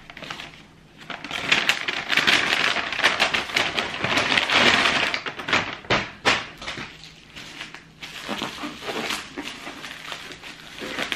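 Paper and plastic packaging rustling and crinkling as a wrapped parcel is pulled from a brown paper bag. This is followed by scattered sharper crackles as bubble wrap is handled and cut open.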